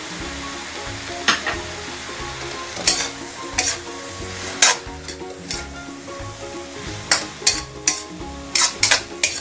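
Eggplant, okra and string beans sizzling in a wok while a slotted spatula stirs them, with repeated sharp clacks and scrapes of the spatula against the pan that come closer together in the last couple of seconds.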